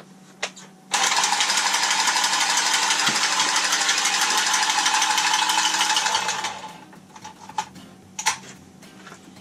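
A cordless power tool runs steadily for about five seconds with a fast, rasping rhythm, then winds down, followed by a few light clicks.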